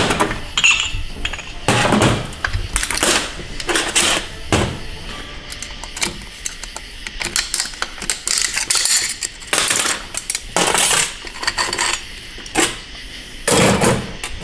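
Steel clutch plates and friction discs clinking and clattering as a 6L80 transmission clutch pack is taken apart by hand, with a pick scraping and clicking against the metal drum. It is a string of short metallic clicks and rattles, with the loudest clatter near the end as the plate stack is lifted out.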